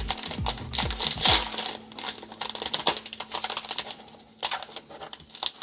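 A plastic trading card pack wrapper being torn open and crinkled, with irregular crackling that is busiest in the first couple of seconds and thins out toward the end.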